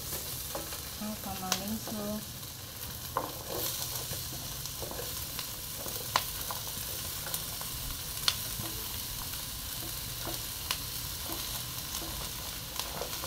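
Chopped vegetables sizzling in hot oil in a stainless-steel wok while a silicone spatula stirs and scrapes them. Sharp clicks come several times as the spatula knocks against the pan and plate.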